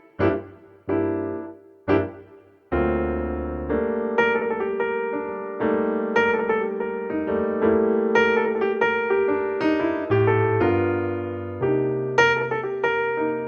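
Background music played on piano: a few separate notes at first, then flowing playing over held chords.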